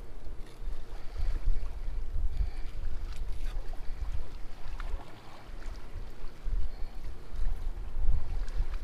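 Wind buffeting the microphone: a gusty low rumble that rises and falls. Under it, faint clicks and scrapes of a knife against a wooden cutting board as a fish is filleted.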